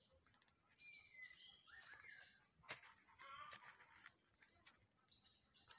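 Faint outdoor ambience: scattered bird calls, including a short whistle that falls in pitch about a second in, and distant chicken clucks, over a steady high-pitched hiss. A single sharp click comes near the middle.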